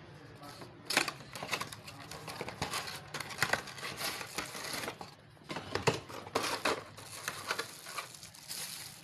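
Plastic blister packaging and a cardboard box being handled and pulled apart: irregular crinkling and rustling with sharp clicks and taps.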